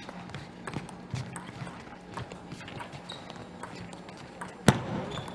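Table tennis rally: the celluloid-type ball clicking back and forth off bats and table in quick succession, with brief shoe squeaks on the court floor. One much louder, sharper hit comes near the end.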